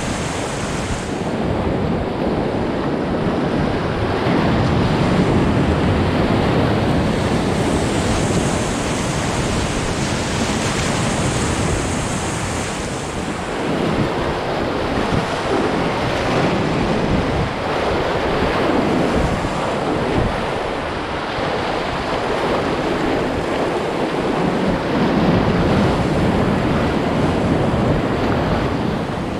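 Whitewater river rapids rushing, a steady loud noise of moving water with no let-up.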